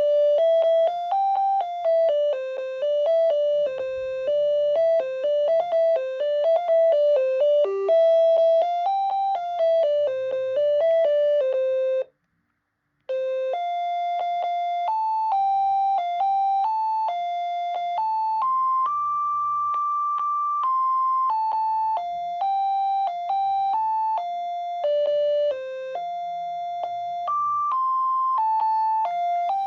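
Panasonic KX-TCD440 cordless phone handset playing its built-in ringtones, simple electronic melodies of one note at a time. A quick tune stops about twelve seconds in, and after a second of silence another melody with longer, higher notes begins.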